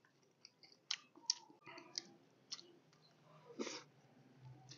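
Faint wet clicks and lip smacks of a person chewing a mouthful of steamed beancurd stick with the mouth closed, irregular, about two a second.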